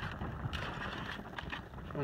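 Wind rumbling on the microphone, with a couple of faint light clicks.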